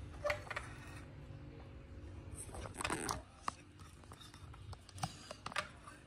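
Faint clicks and short scrapes of the metal portafilter of a semi-automatic espresso machine being handled on the counter, a few separate touches over a low steady hum.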